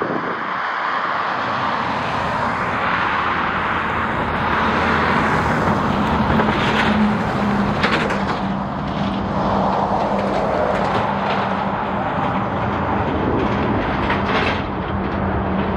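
Jet airliner engines running, a steady rushing noise with a low, even hum underneath.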